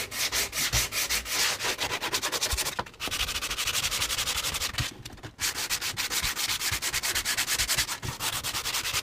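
Wooden wheelhouse framing being sanded by hand in quick, short back-and-forth strokes, rasping evenly. The strokes pause briefly twice, about three and five seconds in.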